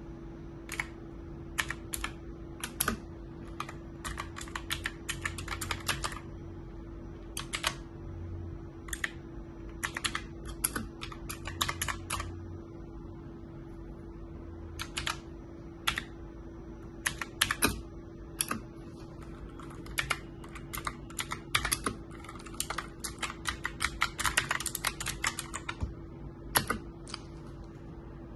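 Typing on an HP GK400F mechanical gaming keyboard: irregular key clicks, some single presses and some quick runs of keystrokes, busiest in the second half. A steady low hum runs underneath.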